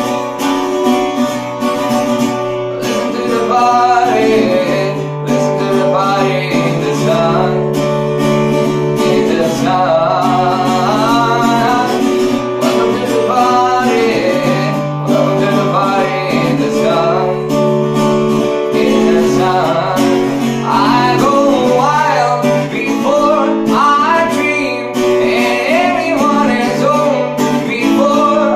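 Acoustic guitar strummed, with a voice singing a melody over it.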